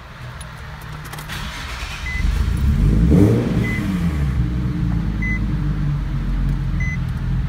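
Turbocharged Nissan 350Z's 3.5-litre V6 rising in revs about two seconds in, then settling to a steady idle, running on an uploaded base map without a proper tune. A short beep repeats about every second and a half.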